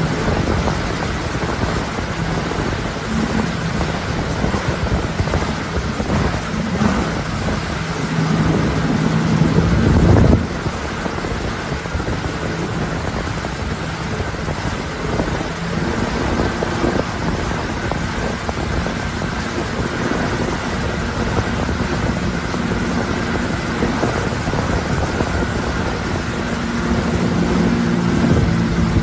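Tow boat's engine running steadily at speed with a low hum, mixed with heavy wind buffeting the microphone and the hiss of the churning wake.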